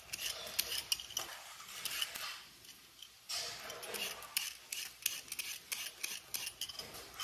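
Vegetable peeler scraping rainbow carrots in quick, repeated strokes, with a short pause partway through.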